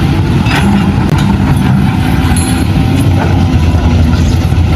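Excavator engine running loud and steady, cutting in abruptly.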